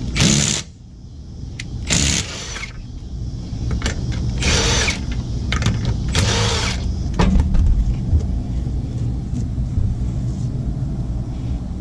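Cordless impact wrench spinning off already-loosened lug nuts in four short bursts about two seconds apart, followed by a steady low rumble.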